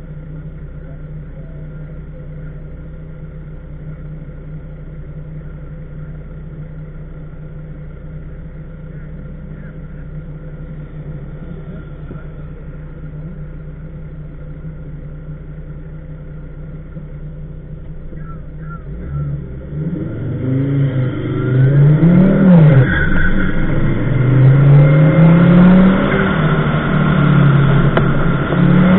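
Car engine idling steadily, heard from inside the cabin. About two-thirds of the way through it revs up and the car accelerates hard, the engine pitch rising and falling several times as the throttle and gears change.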